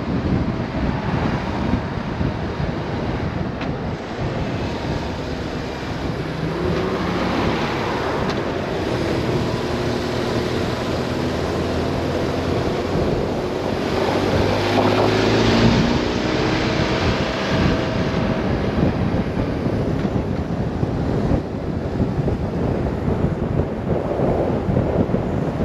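Riding a BMW R 1150 RS motorcycle, its boxer-twin engine under heavy wind noise on the microphone. The engine climbs steadily in pitch for about ten seconds as it accelerates, then drops back.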